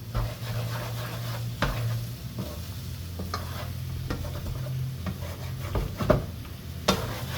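Scrambled eggs with ham and onion sizzling gently in a frying pan on low heat while a utensil stirs and scrapes them, with a few sharp knocks of the utensil against the pan near the end.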